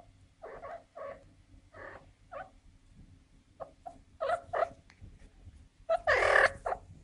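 Young female cat in heat calling in a series of short cries, with one louder, longer yowl about six seconds in.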